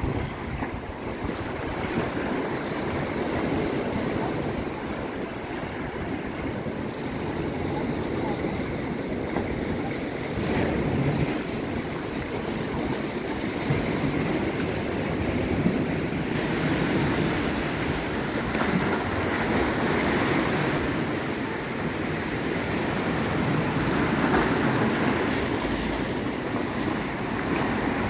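Sea waves washing against the shore, with wind blowing on the microphone; a steady wash that swells and eases every few seconds.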